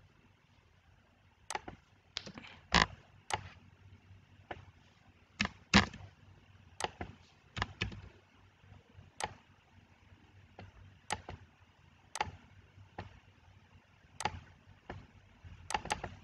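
Computer mouse clicking: about twenty sharp single clicks at irregular intervals, starting about a second and a half in.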